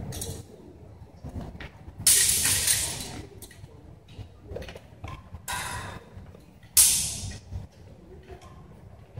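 Steel sword blades clashing: three sharp metallic clashes, about two, five and a half and seven seconds in, each ringing off for about a second.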